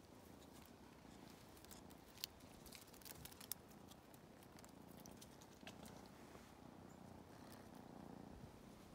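Near silence with a few faint, sharp clicks and scratches from kitten claws gripping tree bark.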